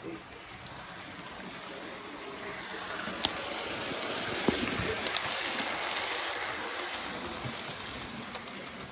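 A model railway locomotive and its train running past close by. Its motor and wheels on the track make a steady rushing noise that swells to a peak about four to six seconds in and then fades, with a few sharp clicks as it goes by.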